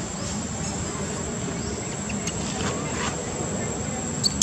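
A steady high-pitched insect drone over a low background murmur, with one sharp click near the end.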